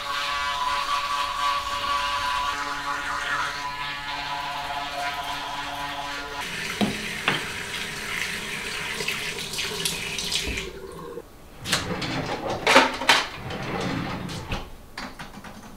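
Water running into a bathroom sink, stopping about ten seconds in. A few sharp knocks and clicks follow as a wooden vanity cabinet door is opened.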